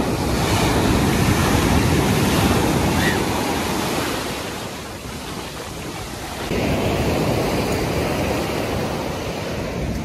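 Ocean surf: waves breaking and foaming water washing up the shore. A loud surge fills the first few seconds and eases off, then a second wave surges in about six and a half seconds in.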